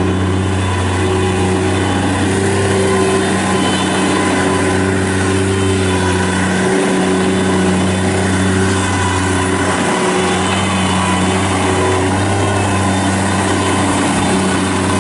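Bobcat MT55 mini track loader's Kubota three-cylinder diesel engine running steadily at a constant speed, with two brief dips in its low note partway through.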